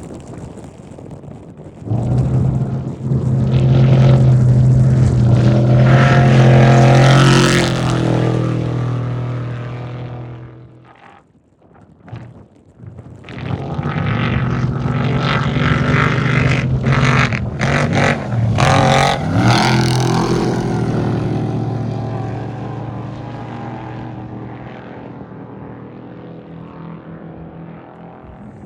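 Two off-road race vehicles' engines passing one after the other at full throttle. The first swells up about two seconds in and dies away by about eleven seconds; the second comes in at about thirteen seconds, its engine note dipping and rising again around eighteen seconds, then fades.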